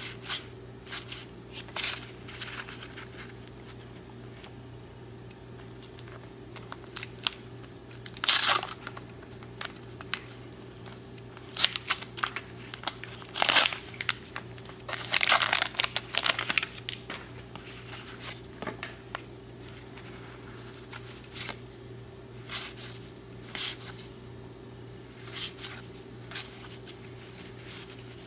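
Waxed-paper wrapper of a 1990 Donruss baseball card wax pack being torn open and crinkled, the loudest bursts in the middle, with the light flicks and slides of cardboard cards being handled before and after.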